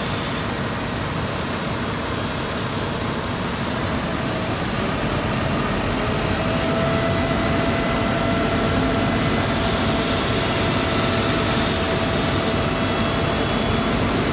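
Fire engine's motor and fire pump running steadily while pumping water off the tank, getting a little louder about five to seven seconds in as a steady whine comes in.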